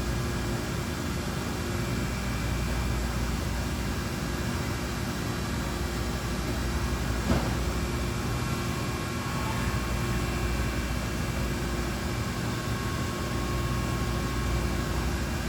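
DMG DMU-210P 5-axis portal CNC machining center running: a steady mechanical hum with several steady tones over an even hiss, and a single sharp click about seven seconds in.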